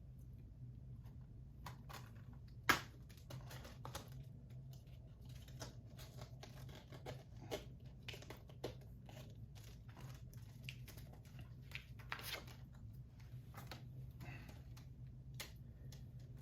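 Plastic shrink-wrap being torn and crinkled off a 4K Blu-ray case, with the plastic case handled and clicked. There is a sharp click about three seconds in and a run of small crackles and clicks after it, over a low steady hum.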